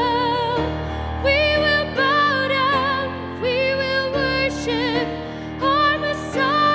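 A woman singing a Christmas carol with vibrato over sustained instrumental accompaniment.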